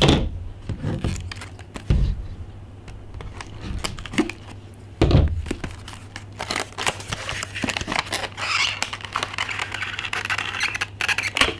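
Product box being opened and unpacked by hand: a few dull thumps over the first five seconds, then a run of rustling, crinkling and small clicks of the packaging.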